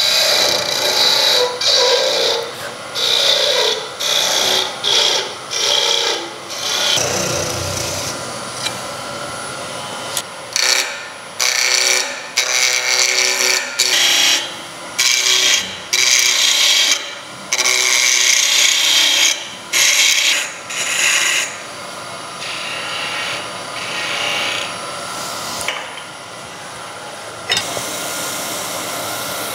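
Wood lathe spinning a small ash blank while a gouge cuts it in repeated short passes, each pass a hissing scrape of steel on wood, with the lathe running steadily between cuts.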